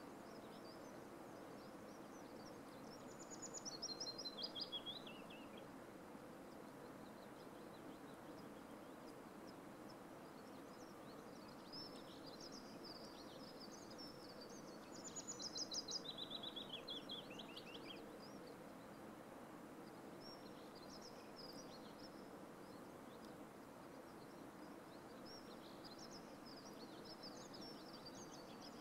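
A small songbird singing: two phrases of quick high notes running downward in pitch, about three seconds in and again about fifteen seconds in, with scattered short chirps between, over a steady faint outdoor hush.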